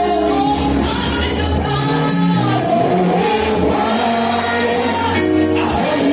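Gospel worship music: voices singing together over a band with a steady bass line.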